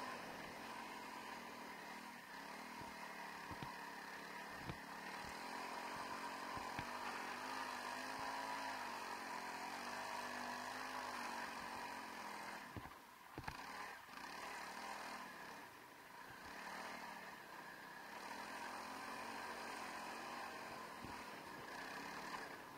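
Honda CRF300L Rally's single-cylinder four-stroke engine running under changing throttle while being ridden, its note rising and falling and dropping away briefly about halfway through. Scattered short low thumps come through over it.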